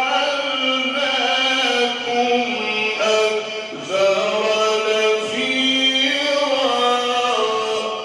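A man reciting the Quran in the melodic mujawwad style, drawing out one long melismatic phrase in sustained notes that step up and down in pitch.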